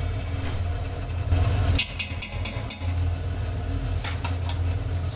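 Steady low mechanical hum, like a running motor, with a few short sharp clicks about two seconds in and again about four seconds in.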